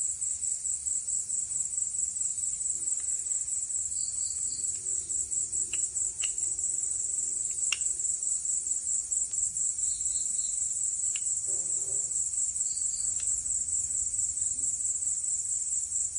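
Crickets trilling in a steady, fast-pulsing high chirr, with a few faint light clicks of metal parts being handled.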